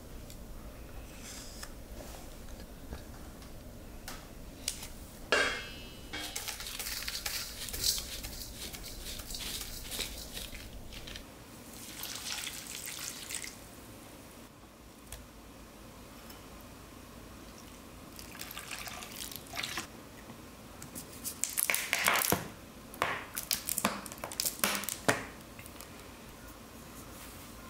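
Sauce being mixed in a stainless steel bowl: a wooden spoon scraping and knocking against the metal, and liquids such as soju and starch syrup pouring and dripping onto thick red chili paste. The sounds come as scattered clicks and short rustling spells, with a cluster of sharp knocks near the end.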